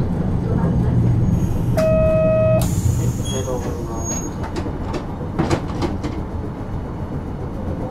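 Interior sound of a 1950 Nippon Sharyo-built Nagasaki Electric Tramway Series 202 streetcar, which has Mitsubishi resistor control. A steady low hum fades about three seconds in. A single electronic beep lasting under a second sounds about two seconds in, and a few short clicks follow later.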